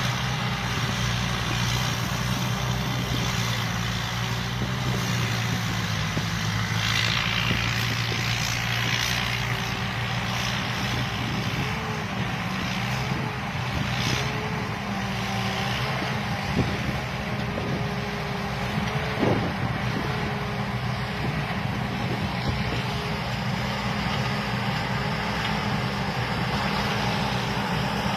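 Combine harvester's engine running steadily, with a higher whine that comes and goes and a few brief swells of hiss from the working machinery. Two short knocks come about two-thirds of the way through.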